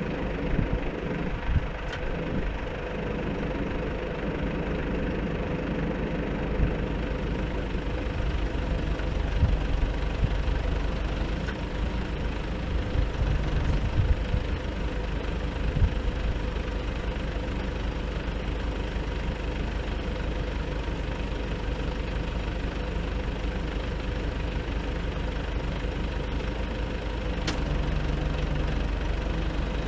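Nissan Cabstar truck engine running steadily to drive the Multitel boom lift's hydraulics while the boom moves, with a steady hum over the engine note and a few louder low bumps partway through.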